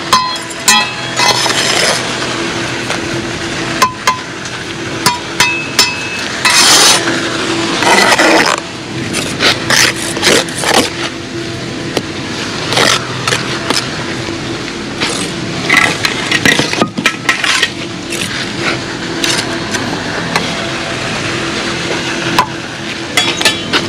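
Bricklaying with a steel trowel: mortar scraped and spread, and many sharp taps and clinks as concrete blocks are knocked down into place. A steady low hum runs underneath.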